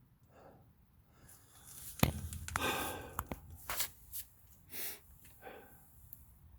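A sharp knock about two seconds in, followed by scattered short rustling and breathy noises.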